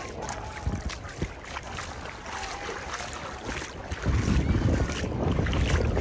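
Wind buffeting the microphone over shallow sea water, with light splashing from wading; the wind rumble grows much louder about four seconds in.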